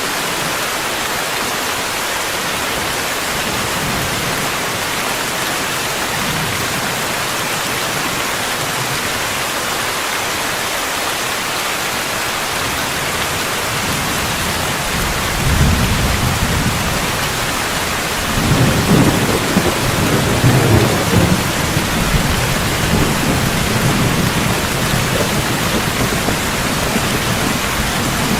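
Steady rain falling, joined about halfway through by rolling thunder: a low rumble that builds from about 15 seconds in and is loudest a few seconds later.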